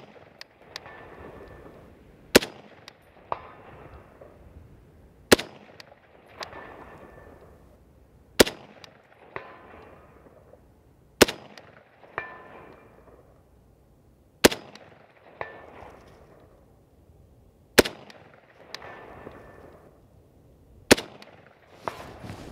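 M14 rifle in 7.62x51 NATO firing slow, aimed single shots, eight in all, about three seconds apart. Each sharp report trails off in an echo, and a fainter ringing hit follows about a second after most shots.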